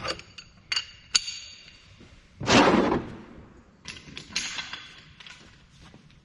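Metal tools and parts clinking and clanking in a series of sharp, ringing knocks, with one louder, rougher burst of about half a second near the middle.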